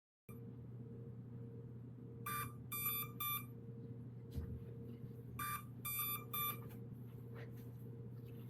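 Hubsan Zino Mini Pro drone beeping while connected by USB for file transfer: two sets of three short high beeps, about three seconds apart. The beeping sets in about 10 to 12 minutes into a transfer and only stops when the drone is restarted; the owner guesses it may be an overheating warning.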